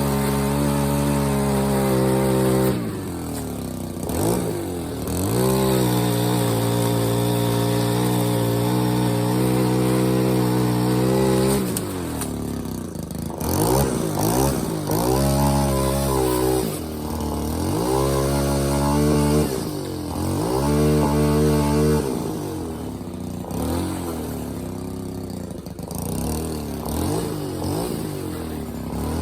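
Small petrol engine of a tree-trimming power tool, held at high revs and repeatedly dropping and climbing back as the throttle is let off and squeezed again, about eight times.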